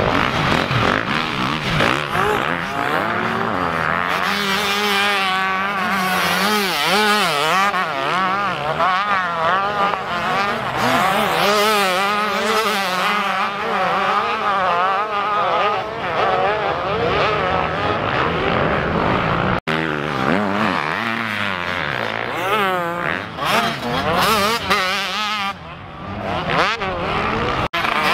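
Several motocross dirt bike engines revving hard on the track, their pitch rising and falling quickly with the throttle as they ride over bumps and jumps. The sound breaks off abruptly twice, about two-thirds of the way through and near the end.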